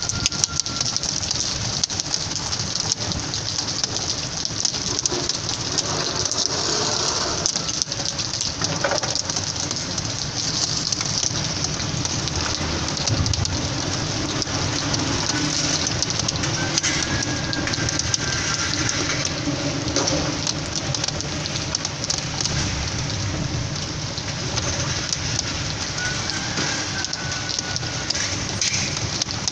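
Heavy rain pouring steadily, an even hiss with no let-up.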